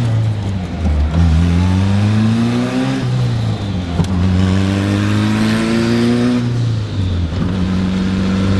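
Turbocharged Honda B-series engine in a Civic, mad loud, pulling hard: the revs climb in repeated pulls, each cut off by a sharp drop at a gear change about a second in, at three seconds and near seven seconds, then hold steady near the end.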